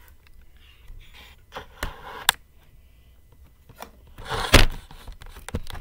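Handling noise from a camera being moved and set in place: scattered knocks and rubbing against the device, with one louder scraping rush about three-quarters of the way through.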